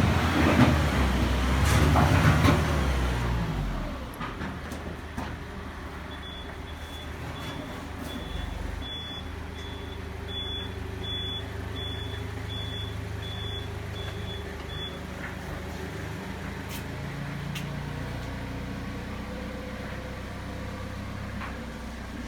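Stone-working machinery running loudly, dropping about four seconds in to a steady low hum. A high electronic beep repeats about twice a second for roughly nine seconds in the middle.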